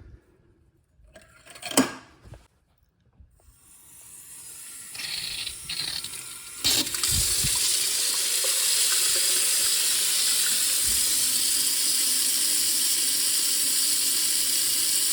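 A kitchen mixer tap is turned on and water runs steadily into the sink. The flow builds over a few seconds and runs full from about halfway, after a single click near the start. The tap is being run to test whether its spout still leaks past the O-ring.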